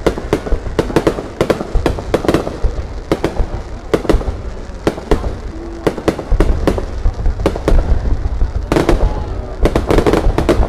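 Fireworks display: aerial shells bursting in a rapid, uneven string of bangs, several a second, over a low rumble, getting denser toward the end.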